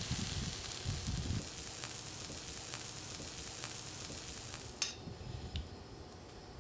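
Chicken parmesan sizzling in a frying pan. About five seconds in there is a sharp knock and the sizzle dies down as the pan is pulled off the stove.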